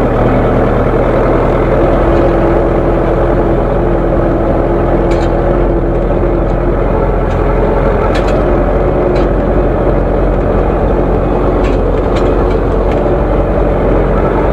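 Zetor 7245 tractor's four-cylinder diesel engine running steadily.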